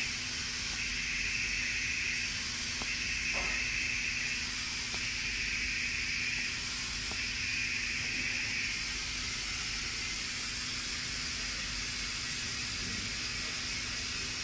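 Steady air hiss from a pneumatic vacuum pick-up pen and label-peeling machine, over a low steady hum. A higher hissing band swells for about a second and a half roughly every two seconds, then stops about nine seconds in. A few faint light clicks sound as labels are picked off the plate.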